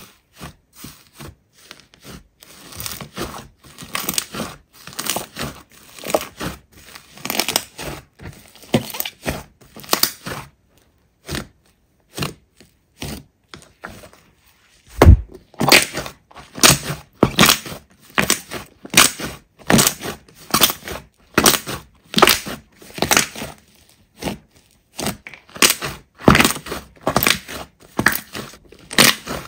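Slime being pressed and squeezed by hand, giving a string of sharp crackles and pops. Sparse and quieter in the first half, then a heavy thud about halfway through and a louder, steady run of crackles after it.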